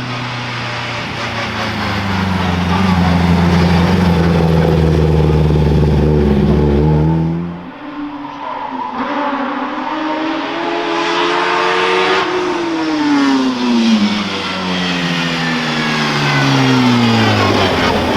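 Hill-climb race car engines at full throttle. One engine holds a steady high note and cuts off about seven seconds in. Then another climbs in pitch and falls away again as it passes.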